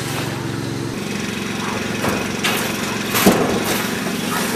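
Motor of an automated sheep dip machine running steadily, its note shifting about a second in. Several sharp knocks and clanks sound over it, the loudest a little past three seconds in, as sheep push through the galvanised steel race.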